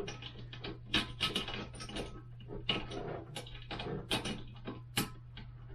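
Irregular clicks, taps and knocks of a toilet seat and its mounting hardware being handled and fitted, over a steady low hum.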